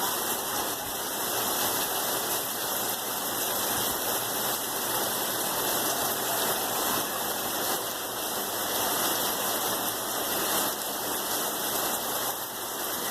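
Steady rain falling, an even, dense hiss that holds at a constant level.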